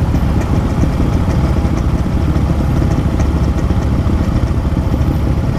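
Yamaha RX-King's 135 cc single-cylinder two-stroke engine running steadily through an aftermarket exhaust, with no revving.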